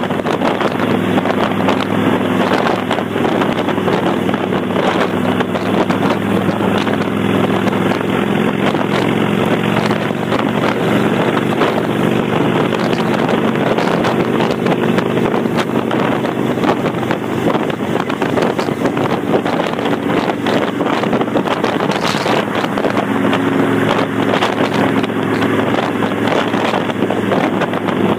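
Kawasaki Vulcan 800's V-twin running steadily through Vance & Hines Straight Shots pipes with the baffle plugs removed, a loud open-exhaust note, with wind rushing over the microphone.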